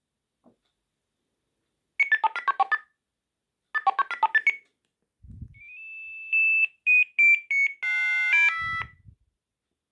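Sagem MW 3020 mobile phone playing ringtones. First come two short bursts of rapid electronic beeping notes. Then, after a low thump, a different tune glides up into a held high tone, steps down through a few short notes and ends on a brief chord with another thump.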